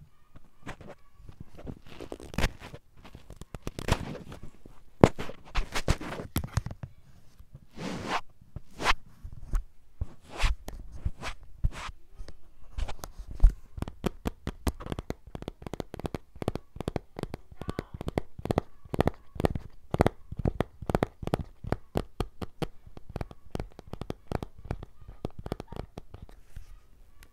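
Quick, irregular tapping on a hard object, several sharp taps a second and faster in the second half, with a few longer scratchy sounds in the first eight seconds.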